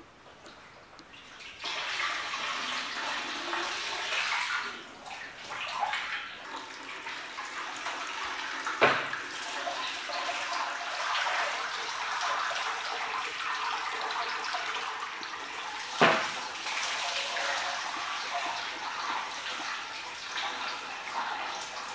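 Whey splashing and trickling into a stainless steel cheese vat as fresh curd is scooped and pressed by hand into plastic moulds. The splashing starts about a second and a half in, and two sharp knocks, about nine seconds in and again some seven seconds later, stand out above it.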